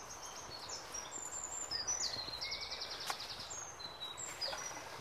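A small songbird singing: a phrase of quick, high whistled notes with a fast trill in the middle. A single sharp click a little after three seconds.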